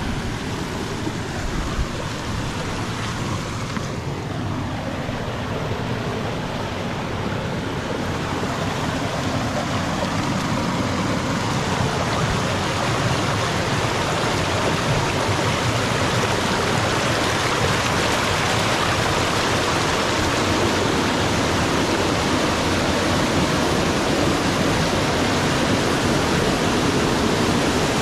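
Small stream cascade rushing and splashing over granite rocks, a steady roar of water that grows louder over the first dozen seconds and then holds.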